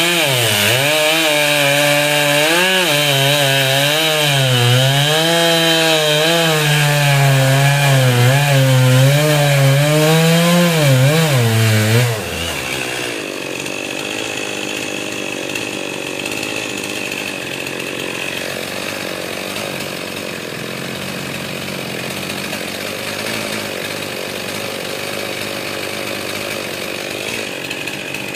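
Stihl MS 441 C two-stroke chainsaw cutting into rambutan wood at full throttle, its engine note dipping and rising as the chain bites. About twelve seconds in, the note drops suddenly and the saw runs on quieter and steadier.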